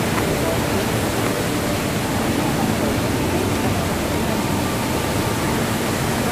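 Steady rushing of a waterfall pouring into a rock pool, an even wash of noise with no breaks.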